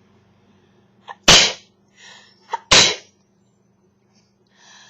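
A woman sneezing twice, about a second and a half apart, in a sneezing fit. Each sneeze is loud and sudden, with a quick catch of breath just before it.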